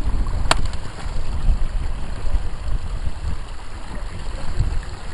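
Irregular low rumble of wind buffeting the camera microphone, with one sharp click about half a second in.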